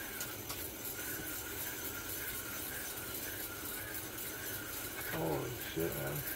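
Fishing reel being wound in against a hooked fish: a soft, steady whirring and rubbing with a faint wavering whine. A brief muffled voice comes in about five seconds in.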